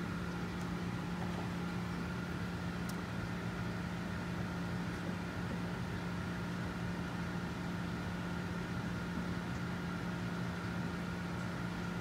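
Steady machine hum with a low drone and a fainter higher whine, unchanging throughout, with a few faint light clicks near the start.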